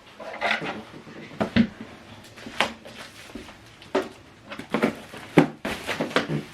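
Unboxing handling noise: about ten irregular knocks, taps and rustles as boxed equipment and packaging are moved about.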